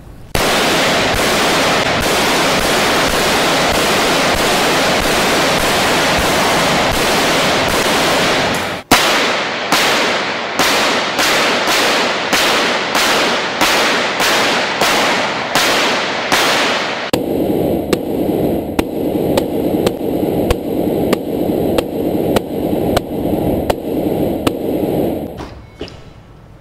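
Gunfire from an AK-style rifle shot at an armored SUV's bulletproof windshield. It starts as a continuous burst for about nine seconds, then comes one sharp crack, then shots at about two a second until shortly before the end.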